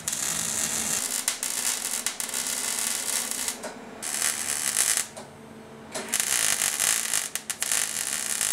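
Wire-feed welder arc crackling and sizzling as it lays weld on sheet-steel body panels. It comes in three runs, with a brief stop about three and a half seconds in and a longer one about five seconds in.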